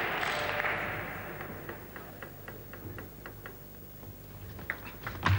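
Applause dying away, then a run of light, evenly spaced table tennis ball clicks, about four a second, against table and bat. A louder knock comes near the end.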